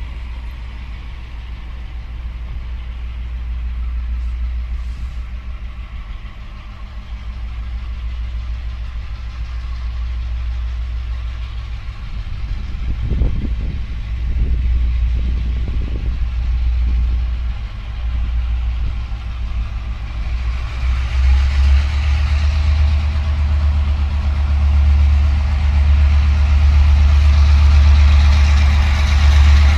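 Diesel-electric locomotive R106 pulling a passenger train and approaching, its engine a steady low drone that grows louder about two-thirds of the way through as the train draws near, with the hiss of the train running on the rails rising along with it.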